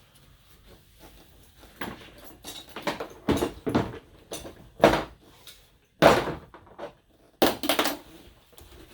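Handling noise as tools and gear are moved and set down: a series of separate clunks, knocks and rustles, with the loudest, sharpest knock about six seconds in.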